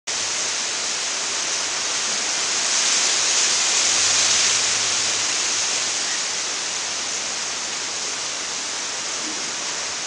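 Wind blowing through trees, the fronds of coconut palms and banana leaves rustling in a steady hiss that swells about three seconds in and eases again after five.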